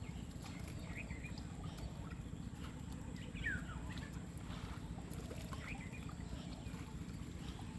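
A bird calling with short sweeping chirps, about three times, over a steady low rumble.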